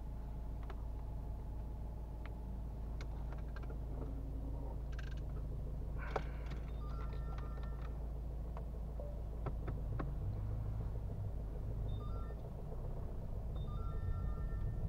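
Citroën Berlingo's 1.5-litre BlueHDi diesel engine idling steadily, heard from inside the cabin, with scattered clicks and a few short high electronic beeps.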